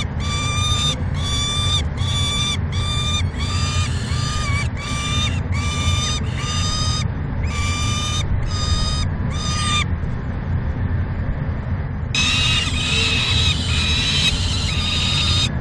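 Peregrine falcon calling from the nest box: a regular series of drawn-out, even-pitched calls, about two a second. The calls break off about ten seconds in and resume a couple of seconds later, faster and higher. A steady low rumble runs underneath.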